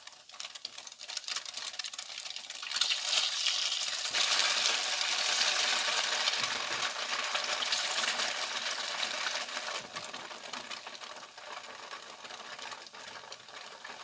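Cubes of firm tofu pan-frying in hot oil in a nonstick wok: a steady sizzle with fine crackling. It swells about three seconds in and eases off near the end.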